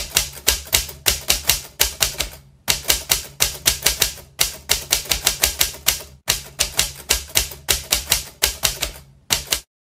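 Typewriter keystroke sound effect: rapid key clacks, about four a second, in short runs broken by brief pauses, matching the letters of a quotation typed across the screen.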